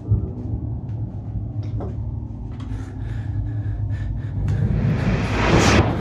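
A low, steady rumble with a sharp thud at the start, then a noisy whoosh that swells from about four and a half seconds in, peaks near the end and then drops away.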